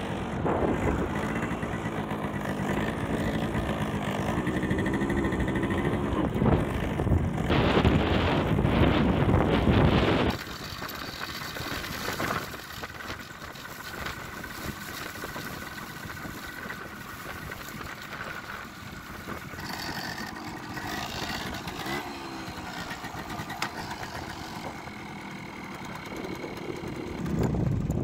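Small Suzuki motorcycle's engine running while riding, with heavy wind noise on the microphone. About ten seconds in the wind noise drops away suddenly, and the engine runs on more quietly with a steady tone.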